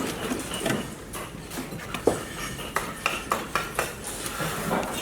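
Hard objects clinking and knocking against each other, with a quick run of sharp clicks about two to four seconds in over light clattering.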